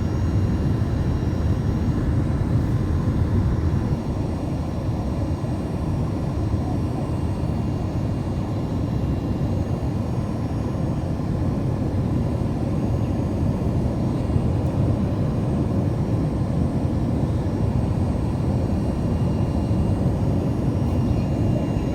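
Steady cabin noise of a Boeing 787-9 airliner in flight on descent: a low, even rumble of engines and airflow with a faint steady whine, easing slightly about four seconds in.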